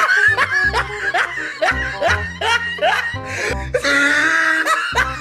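Comic background music with a bass beat and short sliding notes, with laughter mixed in.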